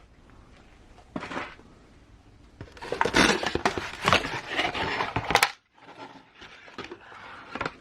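Packaging being handled by hand: a brief rustle about a second in, then a few seconds of rustling, scraping and clicking of cardboard and plastic, fainter near the end.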